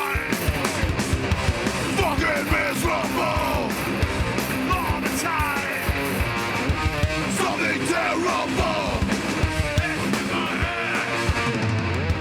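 A live metallic hardcore band playing loud and fast, with distorted electric guitars, pounding drums and shouted vocals.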